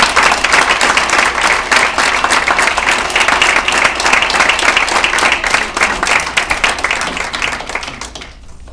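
Audience applauding: many people clapping together, dense and loud, then dying away about eight seconds in.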